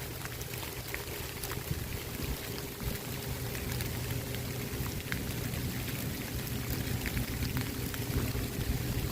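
Steady rain falling, with scattered drops ticking sharply close by.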